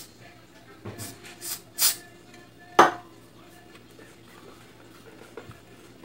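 Several short hissing squirts from an aerosol spray can with a straw nozzle, aimed into the rusted coupling on a blender's motor shaft. About three seconds in there is one sharp knock, the loudest sound, and later a few light clicks.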